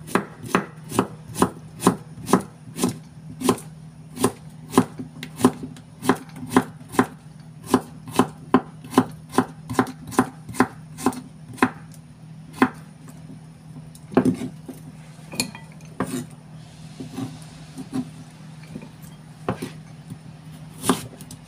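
Kitchen knife chopping chayote into cubes on a wooden cutting board, the blade knocking on the board about two to three times a second. About halfway through the cuts slow to scattered single strokes.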